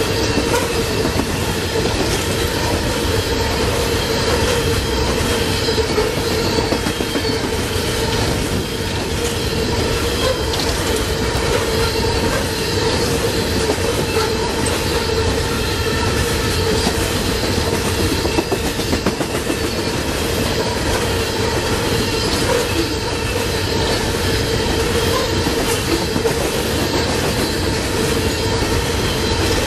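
Loaded Norfolk Southern coal hopper cars rolling past: a steady rumble of steel wheels on rail with a rhythmic clickety-clack and a steady high wheel squeal.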